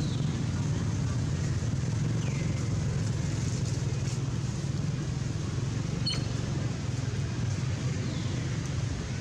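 Steady low rumble like a running engine or nearby traffic, with a few faint falling chirps and a single sharp click about six seconds in.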